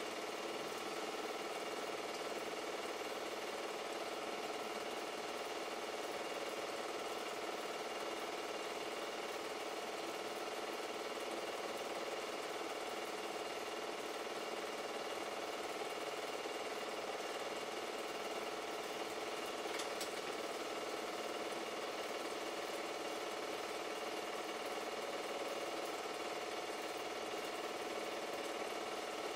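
Super 8 film projector running: a steady mechanical whir with a constant hum of several even tones.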